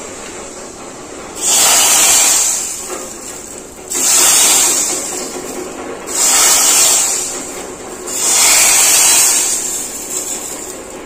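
Hot oil with dried mint sizzling in a pan, then hissing loudly as it is poured over a pot of hot stew, in four surges of about two seconds each.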